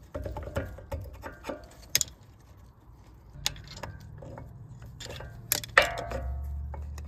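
New brake pad being pushed and wiggled into a truck's front caliper bracket, its metal backing plate and clips clinking and clacking: a run of sharp clicks with short metallic ringing, the loudest near the end.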